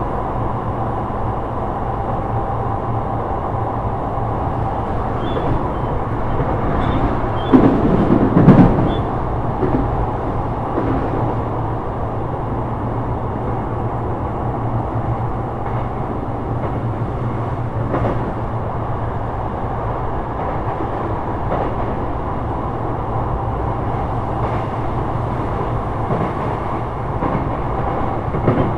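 Sotetsu 12000 series electric train running at speed, heard from inside a car: a steady rolling rumble with a constant motor hum. A brief loud clatter of the wheels comes about eight seconds in, and lighter knocks follow later.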